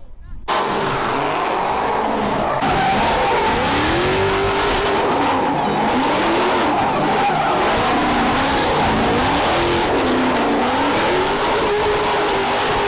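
A car drifting in the pit: tyres squealing continuously while the engine revs rise and fall over and over. It starts abruptly about half a second in.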